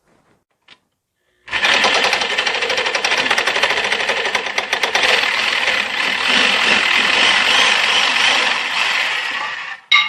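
Power saw cutting through a wooden hammer handle near the head, a fast steady rasping buzz that starts about a second and a half in and stops just before the end.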